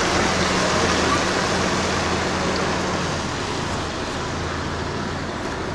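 Steady rushing noise with the low hum of an idling van engine, which drops away about three seconds in.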